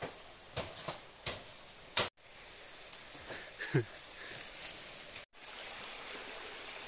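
Scattered snaps and crunches of footsteps pushing through forest undergrowth over a steady background hiss, with a short low falling voice sound about four seconds in.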